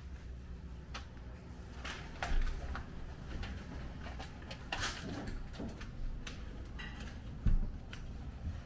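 Scattered knocks, clicks and scrapes of work on an HVAC unit install, with two heavier thumps about two and a half and seven and a half seconds in.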